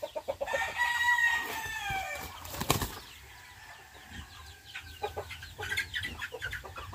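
A rooster crows once, a long call of about two seconds that drops in pitch at its end, starting about half a second in. Near the three-second mark there is one sharp, brief sound, followed by quieter scattered scuffles and clucks.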